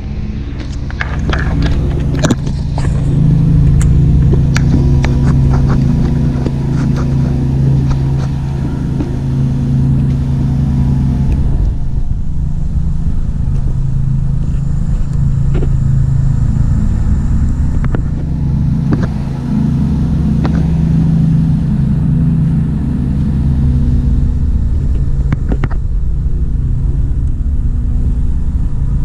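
Steady low mechanical rumble, like an engine running, with scattered small clicks and taps over it.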